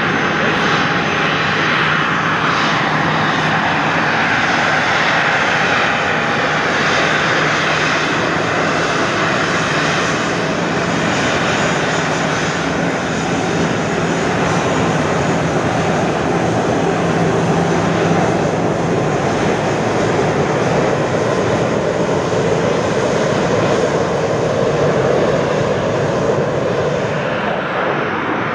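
Jet airliner engines running loudly and steadily for the whole stretch, the noise shifting lower in pitch over the last several seconds.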